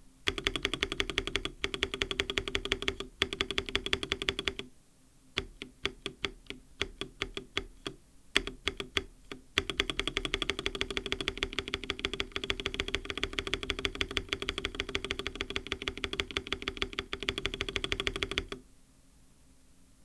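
Spacebar of an mStone Groove T mechanical keyboard with lubed MMD Coral linear switches and a silicone plate foam, pressed over and over: fast runs of presses, with slower single presses in the middle, stopping shortly before the end.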